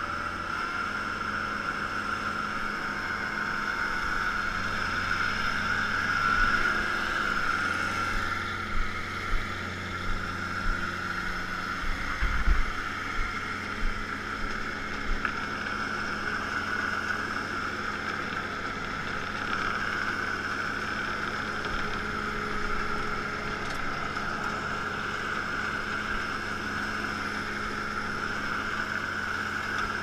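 Kubota B2710 compact tractor's three-cylinder diesel engine running steadily, driving a BearCat 540 chipper/shredder through the PTO, with a steady high whirr from the spinning chipper. A few dull low thumps come around the middle.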